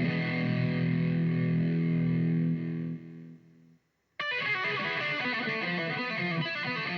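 Electric guitar played through a boost/overdrive pedal. A held, distorted chord rings out and dies away to brief silence, then the playing starts again abruptly a little over halfway through.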